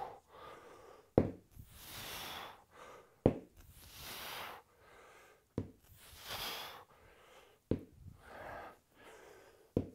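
A man breathing through slow kettlebell sumo deadlifts: a soft breath about every two seconds, each one just after a short sharp click.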